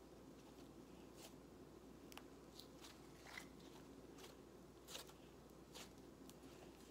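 Slime being stretched, folded and squeezed by hand, giving faint, irregular clicks and pops about once or twice a second over a low steady hum.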